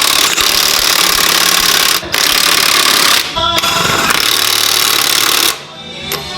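Impact wrench running lug nuts onto a car wheel in long, loud bursts, with brief pauses about two and three and a half seconds in and a longer one near the end.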